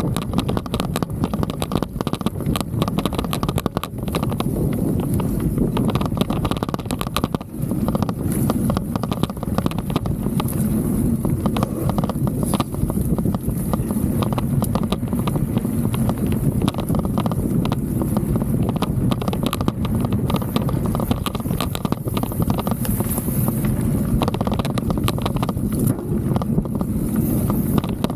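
Handlebar-mounted Insta360 X3 camera rattling and knocking on its loose mount as the mountain bike rolls over rough grass and dirt: a dense, continuous clatter over a heavy rumble of tyre and trail noise. The mount was not solid, which is why the camera itself is so noisy.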